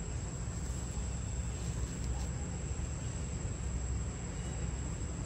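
Insects droning steadily at one high pitch over a steady low rumble.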